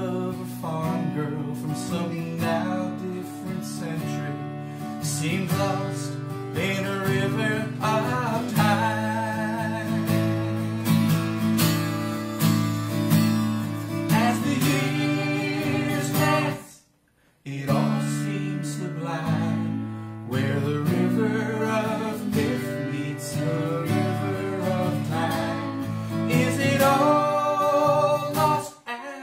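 Acoustic guitar strummed steadily under a harmonica playing the melody, in an instrumental break of a folk song. The sound drops out completely for about half a second around two-thirds of the way through.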